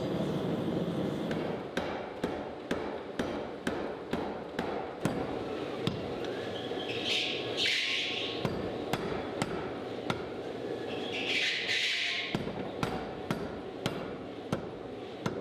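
Hammer blows on a hot twisted Damascus steel billet as it is forged back to square, irregular, about two strikes a second, over a steady background rush. Two brief hisses come about halfway through and again near the end.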